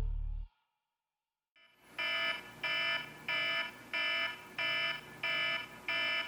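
Electronic alarm beeping in an even repeating pattern, about three beeps every two seconds, starting about two seconds in. Before it, the tail of electronic music fades out into a short silence.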